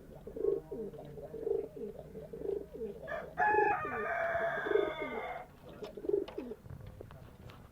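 A bird cooing in short, low calls about once a second. About three seconds in comes a louder, longer call of about two seconds.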